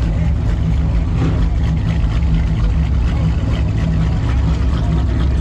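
Car engine running steadily with a deep, loud exhaust rumble.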